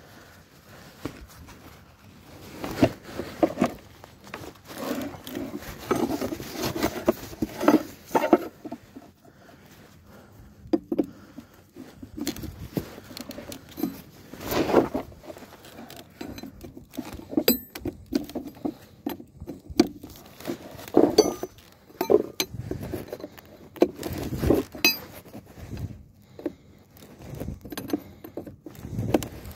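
Irregular clinks, rattles and scrapes of hand tools and metal parts while working on a trailer's brake chamber, with a few sharper metallic ticks in the second half.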